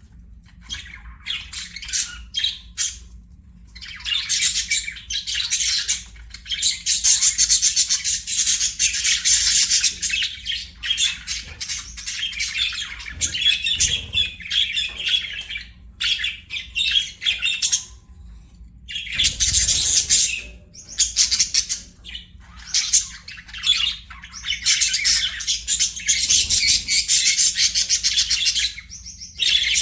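Budgerigars chirping and warbling in fast, dense runs of high chatter with occasional squawks, broken by a few short pauses.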